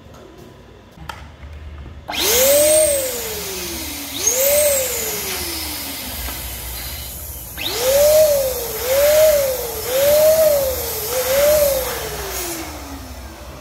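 Electric twin-nozzle balloon pump running as it blows up a latex balloon. It switches on about two seconds in, and its whine rises and falls about six times, quickly in the second half. It stops shortly before the end.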